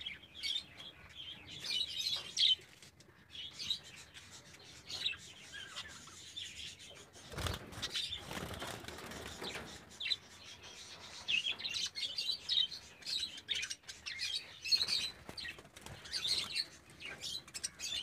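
Many budgerigars chirping and chattering with quick, busy calls, and a flurry of wing flapping about eight seconds in.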